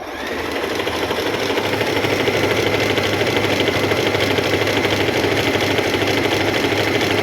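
Singer M3505 electric sewing machine running a decorative stitch pattern. The motor comes up to speed in the first second with a slight rising whine, then runs steadily with a fast, even needle clatter.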